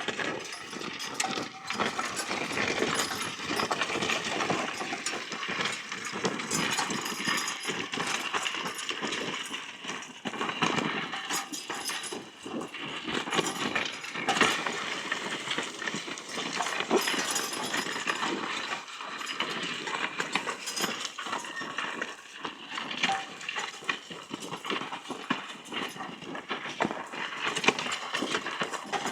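Team of Percheron horses drawing a walk-behind plough through stubble: hooves clopping with harness jingling, over a steady crackle of the ploughshare cutting and turning the soil.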